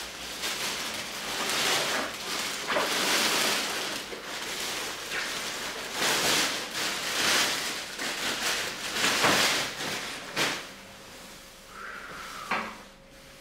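Thin clear plastic garment wrapping crinkling and rustling in repeated bursts as a coat is pulled out of it, dying down near the end.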